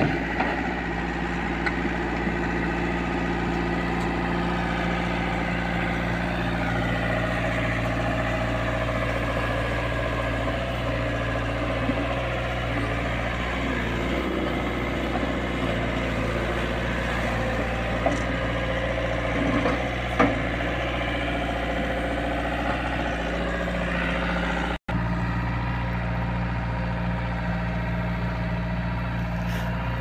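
SDLG crawler excavator's diesel engine running steadily as the machine digs, with a couple of short knocks around the middle. The sound cuts out for an instant near the end.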